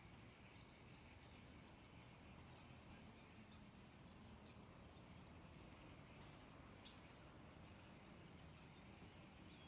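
Faint songbirds calling and chirping, with short high chirps and whistled notes throughout and a longer falling whistle near the end, over a steady outdoor hiss.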